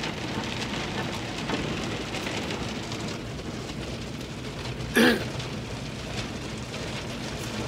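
Automatic car wash heard from inside the car's cabin: a steady, rain-like rush of water spray and washing cloths over the body. About five seconds in there is one short, loud burst.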